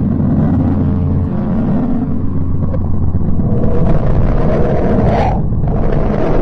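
Deep, continuous rumbling drone with a steady low hum, presented as the sound of the dwarf planet Pluto. About four seconds in it swells into a brighter rising whoosh, then breaks off briefly near the end.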